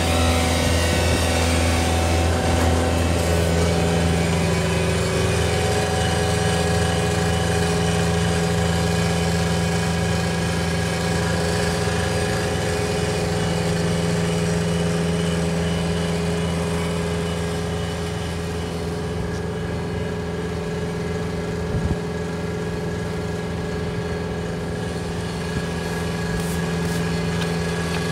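Skid-steer loader with a cold planer (milling) attachment: its diesel engine and hydraulics run steadily, with an even engine hum under a broad hiss, easing a little about two-thirds of the way through.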